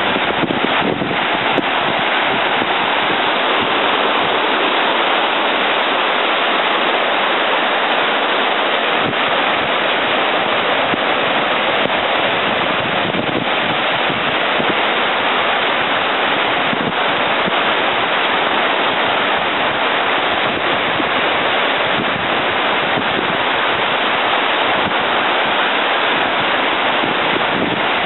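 Mississippi River water rushing through the spillway below Lock and Dam 13's roller gates: a loud, steady noise of churning whitewater.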